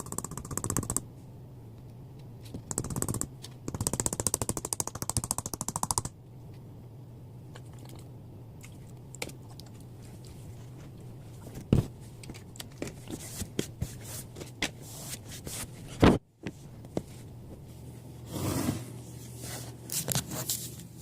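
Plastic shaker bottle being handled and emptied out: bouts of rapid clattering rattle for a few seconds, then scattered taps and knocks, with a sharp knock about 12 s in and another about 16 s in.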